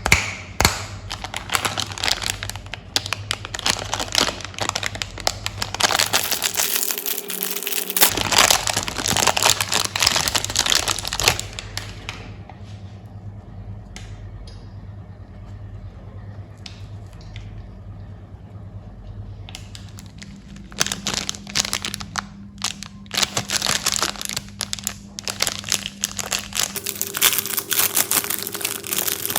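Plastic and foil candy wrappers crinkling and crackling as they are handled and torn open, in busy spells with a quieter stretch of several seconds in the middle. A faint steady low hum runs underneath.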